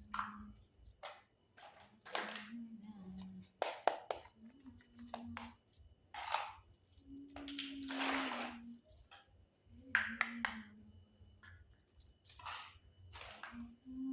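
Small pieces of a miniature toy kitchen set being handled and set down: a string of separate clicks, clinks and rustles, about one every second, with short faint low tones between them.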